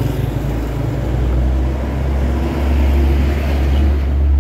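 Heavy truck's diesel engine running low, getting louder over the last couple of seconds as the truck comes alongside and passes close by.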